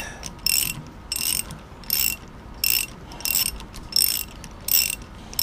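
Ratchet wrench on a socket driving an M20 taper tap by hand into hardened steel rod: the pawl clicks in a short burst on each back-swing of the handle, about every two-thirds of a second.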